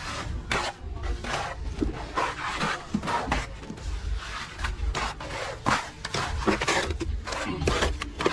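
Plastering work: a run of irregular scrapes and knocks from hand tools working on a surface, over a steady low rumble.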